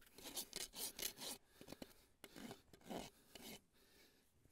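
A farrier's hoof rasp filing a young foal's hoof in faint, rough strokes: a quick run in the first second and a half, then a few slower strokes, stopping before the end. The heels are being evened up during a trim.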